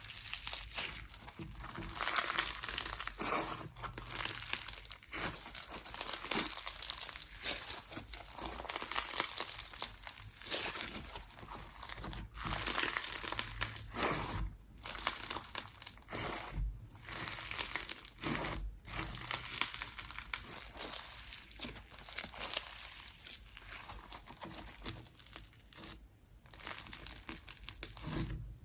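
Hands squeezing, stretching and pressing slime, giving irregular bursts of bright noise that swell and fade every second or two, with short pauses between.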